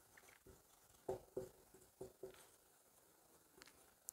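Marker pen writing on a whiteboard: a few short, faint strokes, two pairs about a second in and two seconds in.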